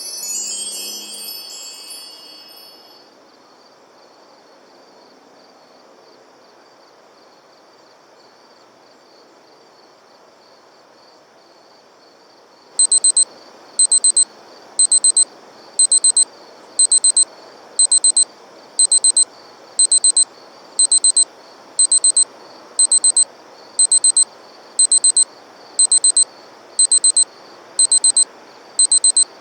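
A bright chime rings at the start and fades over about three seconds, leaving a faint steady hiss. About 13 seconds in, a digital alarm clock starts beeping: short high beep clusters about once a second, repeating.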